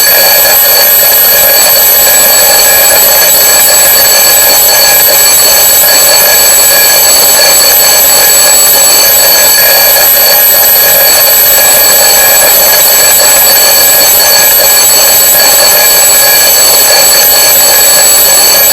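Twin bell alarm clock ringing, very loud and without a break, a steady metallic ring of several bell tones.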